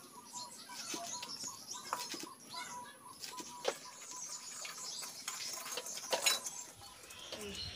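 Bengal arum (kharkol) leaves and stalks being cut by hand on a boti's curved blade, and the cut greens handled in a steel colander: irregular crisp snaps and rustling, with a few sharper clicks about two, three and a half, and six seconds in.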